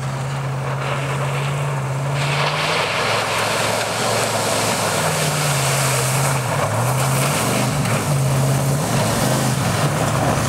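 Full-size Ford Bronco driving hard toward and up to the listener on a muddy dirt road. Its engine note holds, dips and comes back as the throttle changes. From about two seconds in, the hiss and spray of tyres through puddles and wet mud grows louder as it nears.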